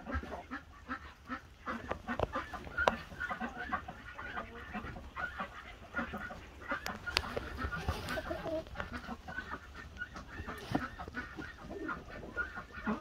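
A flock of hens clucking, many short calls overlapping throughout, with a few sharp clicks.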